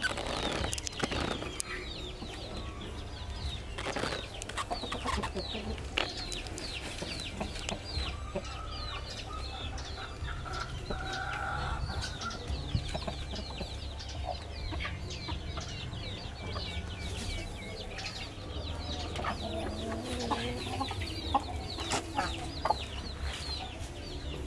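Chickens clucking and calling, with a constant chatter of short, high, falling chirps throughout and a steady low rumble underneath.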